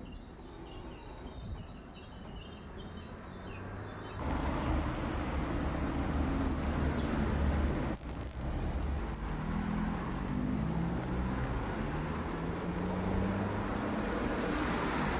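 Volvo city bus's diesel engine running close by, with a short high squeal about halfway through; then the engine note rises in steps as the bus pulls away. Before the bus, the first few seconds are a quieter rumble.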